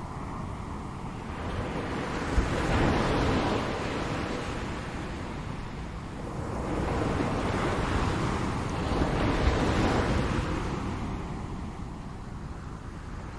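Ocean surf: waves rushing in and washing back in slow surges, swelling about three seconds in and again for a longer stretch past the middle, then ebbing near the end.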